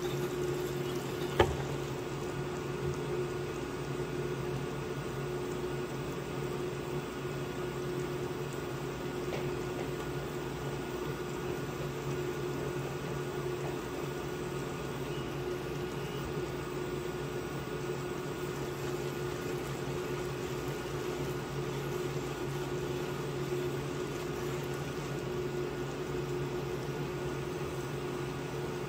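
Water heating in a stainless steel saucepan on a portable induction cooktop, bubbling over the cooktop's steady hum. A single knock about a second and a half in as the pan is set down on the hob.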